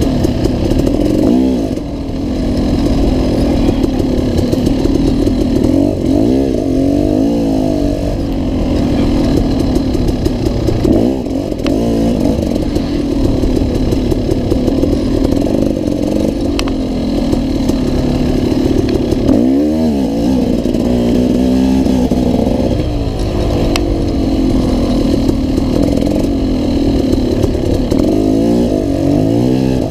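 Off-road dirt bike engine being ridden hard, revving up and down continuously as the throttle is worked and gears change, its pitch rising and falling every few seconds. A few sharp clicks show through.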